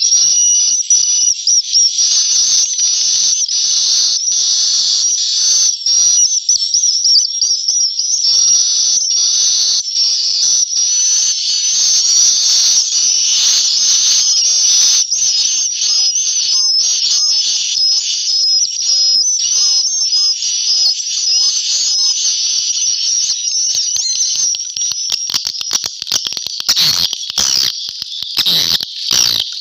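Many edible-nest swiftlets twittering at once inside a swiftlet house, a dense, unbroken chatter of high chirps. Near the end a quick run of sharp clicks cuts through the calls.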